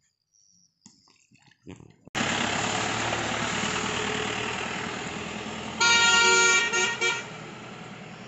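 A utility vehicle passes close on a wet road, its engine and tyres hissing on the wet surface, starting suddenly about two seconds in. About six seconds in its horn sounds: one beep of just under a second, then two short toots, as the vehicle drives off.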